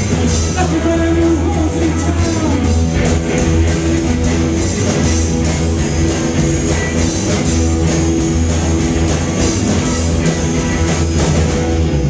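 Live rock band playing loud and steady: electric guitars and drum kit, amplified through the house PA in a club room.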